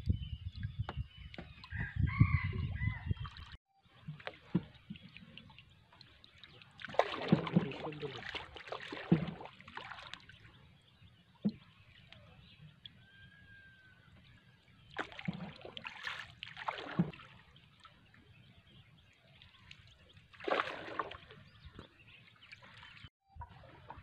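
Water splashing and sloshing as a bamboo pole paddles a small wooden boat, in bursts a few seconds apart.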